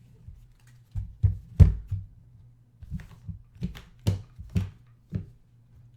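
About a dozen irregular knocks and thumps on a hard surface, in two loose clusters, the loudest about one and a half seconds in.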